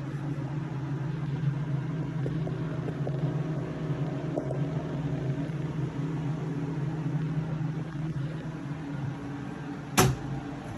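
Steady low mechanical hum, with a single sharp click near the end.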